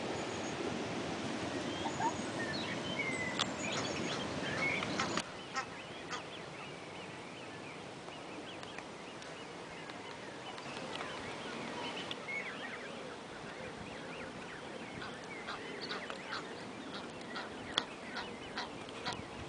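A flock of Canada geese on the river calling, short honks that come thicker toward the end. For the first five seconds a steady rushing noise sits under a few chirps, then drops away abruptly.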